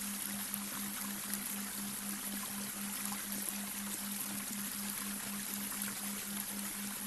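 Babbling brook: water running and splashing steadily over stones. Under it, a steady low hum pulses evenly about three to four times a second, a delta binaural-beat tone mixed in as a sleep aid.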